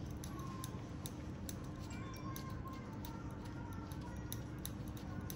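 Small irregular clicks and scrapes of a metal pedicure blade paring a thickened, fungus-infected toenail, a few ticks a second, over a low steady hum.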